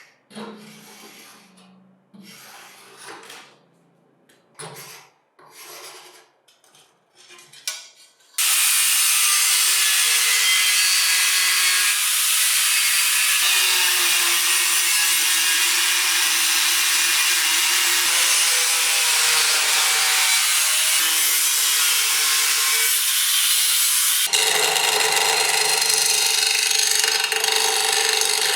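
A handful of short scraping strokes, like hand sanding or filing, then an abrasive power tool starts about a third of the way in and runs loud and steady against the workpiece, its pitch shifting twice.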